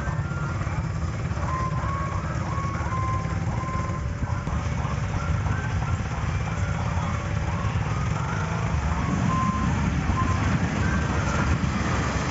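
Steady low rumble of a train at a railway station, with a simple tune of short beeping tones playing over it.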